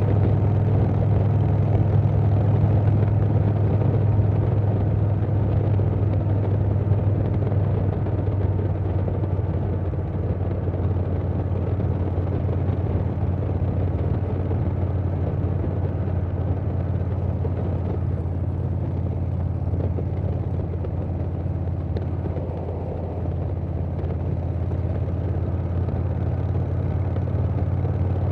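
Milwaukee-Eight V-twin of a 2020 Harley-Davidson Softail Standard running at cruising speed through a Vance & Hines Big Radius 2-into-2 exhaust, with wind rush over the microphone. The engine drone eases slightly partway through, dips briefly, then picks up again near the end.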